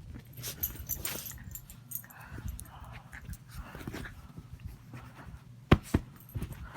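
A pet dog playfully mouthing a person's hand, with heavy breathing and soft rustling close to the microphone. Two sharp clicks come close together near the end and are the loudest sounds.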